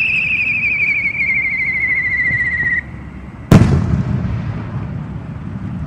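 Whistling firework: a warbling whistle falls slowly in pitch and cuts off suddenly about three seconds in. Half a second later comes a single loud, sharp bang with a short echoing tail.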